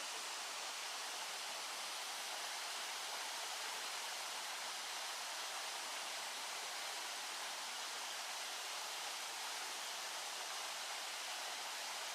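Steady rushing of a waterfall: three parallel falls of about 10 m pouring down side by side, an even, unbroken hiss of water.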